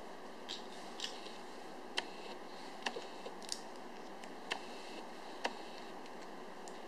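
Small hard plastic clicks and taps, about eight at irregular spacing, as plastic figurines and their round plastic bases are picked up and handled, over a steady hiss.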